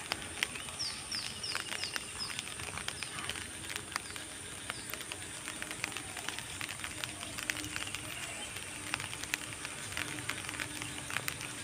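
Outdoor pond ambience: a bird gives a quick series of about six short falling chirps about a second in, over irregular light clicks and crackles and a thin steady high tone.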